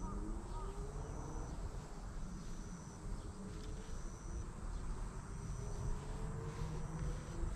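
An insect calling outdoors: a thin, high-pitched note about a second long, repeated every second or two, over a low steady rumble.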